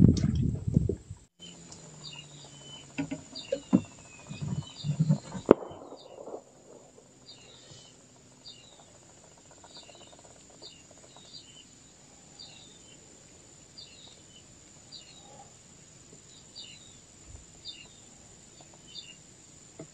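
Night insects and small animals: a steady high insect drone with faint short chirps repeating about once or twice a second. A few knocks and thumps sound in the first six seconds.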